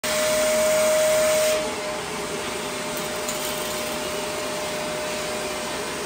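Shark upright vacuum cleaner running over a tile floor: a steady rush of air with a steady whine. It is loudest at first and drops somewhat quieter about one and a half seconds in.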